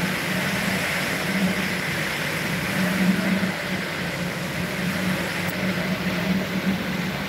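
Hurricane Milton's heavy rain and wind, a steady rushing noise with a low hum underneath that swells and fades slightly.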